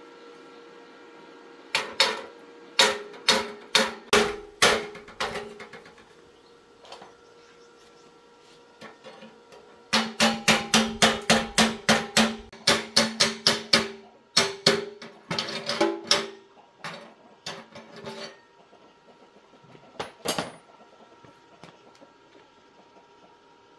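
Hammer striking metal, each blow ringing: a run of about eight blows, then after a pause a faster run of about four blows a second, tailing off into a few lighter taps.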